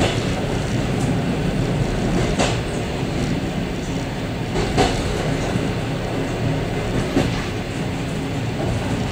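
Suburban passenger train running, heard from inside its vestibule: a steady rumble of wheels on the track, with three sharp, evenly spaced clacks from the wheels.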